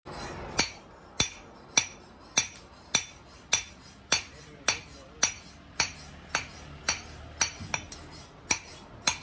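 Hand hammer striking a red-hot steel knife blade on an anvil, forging a meat cleaver. Sharp, ringing blows come evenly at about two a second.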